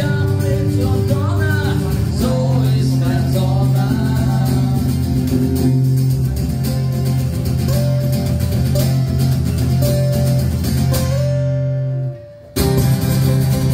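Song music with guitar and held bass notes, with a voice singing at the start. Near the end the music drops out for about half a second, then comes back in.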